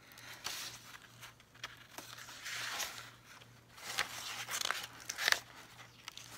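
Sheets of craft paper rustling and crinkling as they are handled and leafed through, in several short swells with a sharper crackle about five seconds in.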